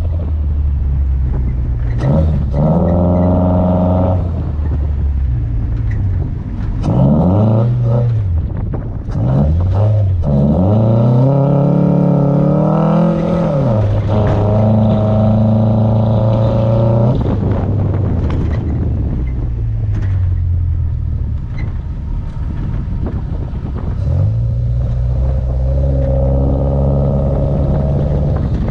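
2000 Toyota RAV4's engine revving up and down repeatedly while driven over a dirt course, its pitch rising and falling several times. A little past the middle the engine note sinks under a rushing noise for several seconds, then comes back steady.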